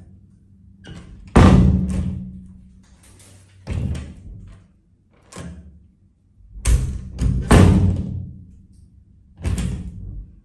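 Brushed-steel lever door handle pressed down and let go again and again, the latch clacking each time with a short ringing decay; there are about seven clacks, two of them much louder than the rest.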